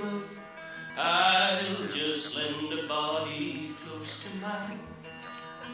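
A man singing with acoustic guitar accompaniment, his voice coming in loud about a second in.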